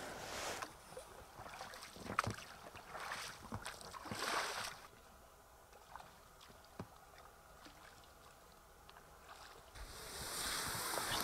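Scattered rustling and a few knocks at first, then a near-quiet stretch. Near the end comes a steady rustling hiss as an inflatable boat is pulled up through tall grass at the bank.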